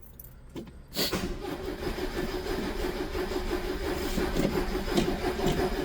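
Starter cranking a 1977 Ford Corcel Belina's engine steadily for about five seconds from a second in, without the engine catching. The carburettor has dried out from the car standing, and the car has no choke cable.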